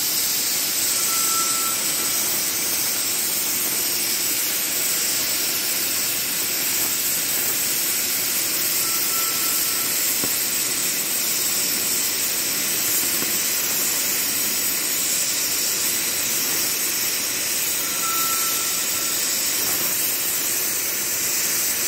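Oxy-fuel cutting torch cutting through a thick iron plate: a steady, unbroken hiss of the flame and cutting-oxygen jet as the cut runs on. A short high tone sounds three times, about nine seconds apart.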